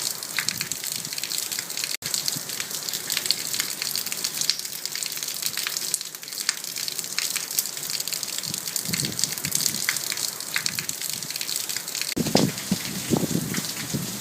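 Desert dust storm: a dense, steady hissing patter of many small impacts. Gusts start buffeting the microphone about twelve seconds in.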